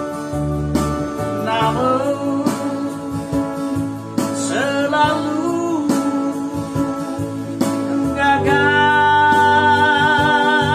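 A man singing an Indonesian worship song over a Yamaha electronic keyboard's accompaniment of steady chords, bass and beat. About eight seconds in he holds one long note, which falls off near the end.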